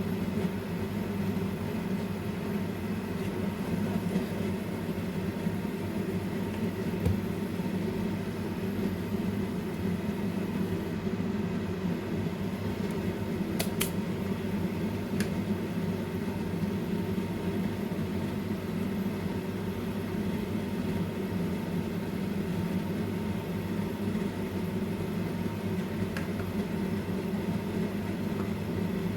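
Steady low hum of a fan or small motor running, with one sharp click about fourteen seconds in.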